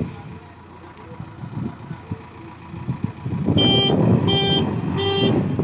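A machine engine running in the background, then, about two-thirds of the way in, a loud horn-like alarm starts beeping on and off about once every 0.7 seconds.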